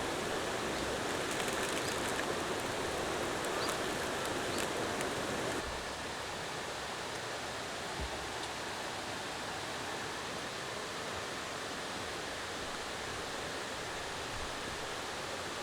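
Mountain valley stream flowing, a steady rush of water. About five and a half seconds in it becomes a little quieter and thinner, then holds steady.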